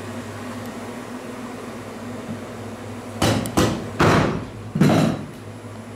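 A meat cleaver chopping through a crocodile tail onto a cutting board: four heavy chops in quick succession, starting about three seconds in.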